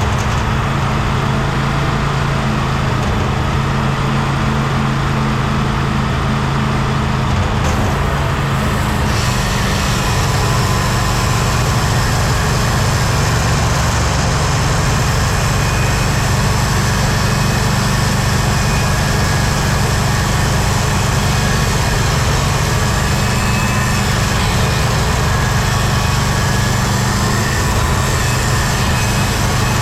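Engine of a Timberking 1600 band sawmill running steadily at a constant speed. About eight seconds in a brighter, hissing noise joins it and carries on.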